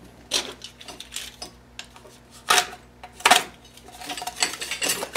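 Steel parts of a manual tire changer clanking and clinking as they are handled and fitted together on a wooden bench: a series of separate knocks, the loudest two about two and a half and three and a half seconds in, then lighter clicks.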